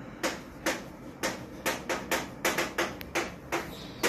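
Chalk writing on a chalkboard: a run of short, irregular taps and clicks, about three a second, as each letter is struck and stroked onto the board.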